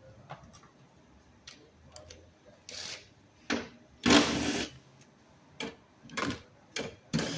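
Hand tools and engine parts being worked under the hood: a string of irregular clicks and short rattling scrapes, the loudest and longest about four seconds in.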